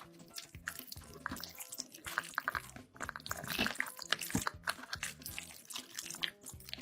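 Close-miked mukbang eating sounds: wet, sticky mouth noises with many rapid small clicks and smacks as food is chewed, over faint background music.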